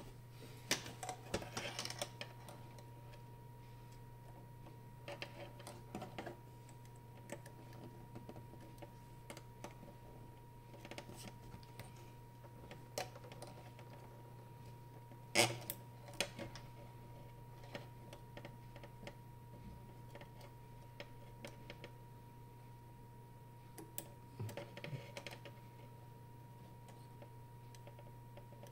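Scattered small clicks and taps of a hand working among the circuit boards, ribbon cables and connectors inside an opened Eschmann E50 electrosurgical unit, with a sharper click about halfway through. A steady low hum and a faint steady tone run underneath.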